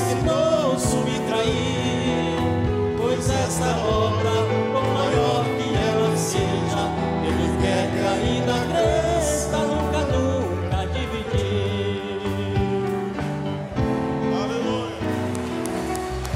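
Closing music of a gospel hymn: a backing track of sustained chords, with a singing voice over it for roughly the first ten seconds before the accompaniment carries on alone.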